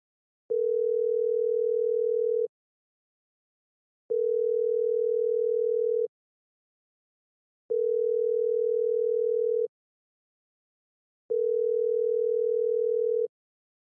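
Telephone ringback tone as a call rings out on the line: a steady, slightly wavering tone held for about two seconds at a time, four rings with short gaps between them.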